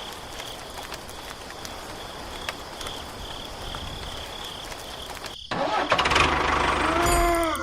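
Insects chirping in a steady, evenly pulsing high trill over outdoor background noise. About five seconds in, it cuts suddenly to a much louder engine-like mechanical sound whose pitch dips and then rises.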